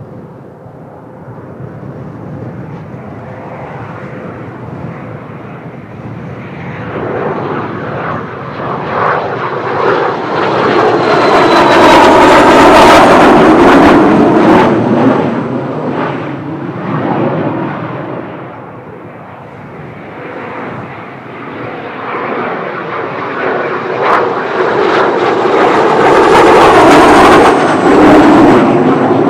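Kawasaki T-4 jet trainers' twin turbofans passing low on the approach to land, one after another. The jet noise swells to a loud peak about twelve seconds in, fades, then a second aircraft swells to another loud peak near the end.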